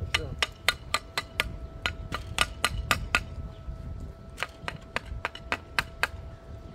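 Quick, sharp metal taps on a freshly flux-core-welded steel bar, about three to four a second, with a short pause a little past halfway.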